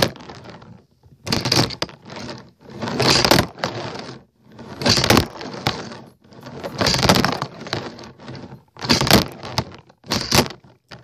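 Handboard clattering and rolling on the floor in repeated rough bursts, about every one and a half to two seconds, as tricks are tried.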